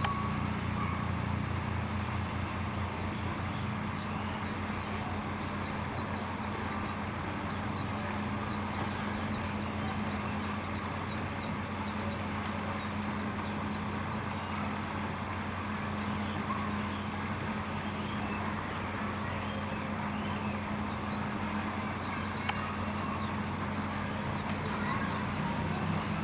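Steady outdoor background hum with faint, scattered high chirps, and a single sharp click about 22 seconds in.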